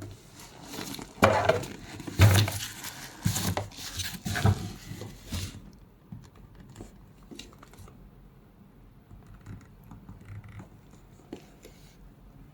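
Rustling and handling noises as a handbag is unboxed. Loud crinkling and rustling runs for the first five seconds or so, then gives way to faint taps and clicks.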